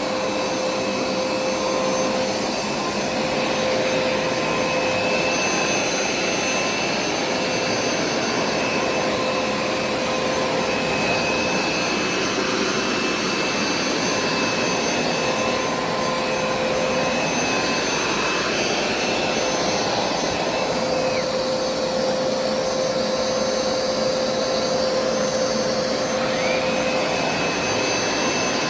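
Hoover SmartWash carpet cleaner running: a steady motor whine over rushing suction noise, with a higher whine that comes and goes several times.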